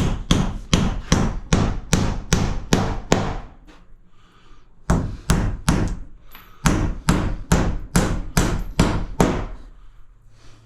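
Hammer driving nails through a fibre cement sheet into timber wall studs: quick, even blows at about three a second, in two runs with a pause of about a second and a half between them.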